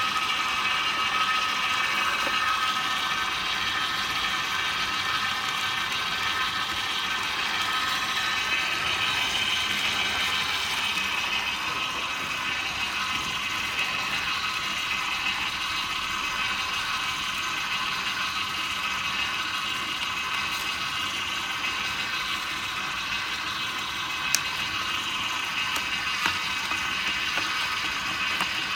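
Vertical slow (masticating) juicer running steadily, its geared motor and auger whirring as they squeeze celery, carrots and apples. There is a single sharp click about 24 seconds in.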